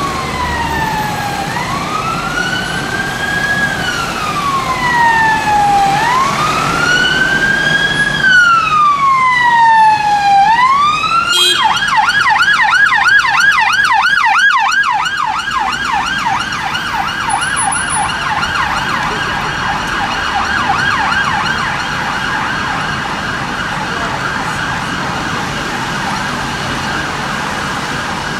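Police Mercedes Sprinter van's siren sounding a slow wail that rises and falls about every four to five seconds, then switching about eleven seconds in to a fast yelp that keeps going, with city traffic running underneath.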